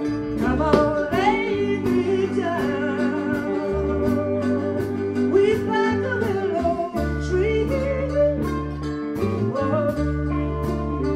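Live blues band playing: a woman singing over bass guitar, guitar and drums, with a steady beat and held bass notes.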